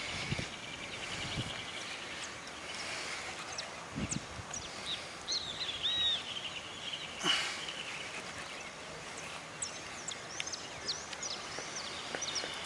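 Small birds chirping and whistling again and again, with one curving trill, over a steady outdoor hiss. A few soft knocks and one sharp click a little past halfway.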